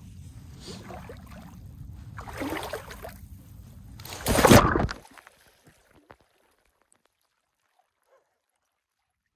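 Low rumbling water and handling noise, a splash about two and a half seconds in, then a loud splash a little past halfway as the camera drops into the shallow lake water; after it the sound falls to near silence.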